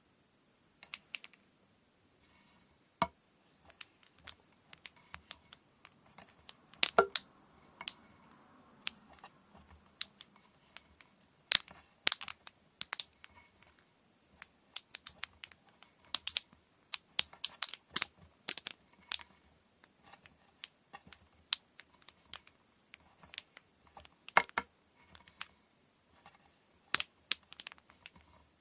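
Hand work preparing cotton threads for a kumihimo braid: irregular sharp clicks and light knocks, often several in quick succession, with a few louder ones.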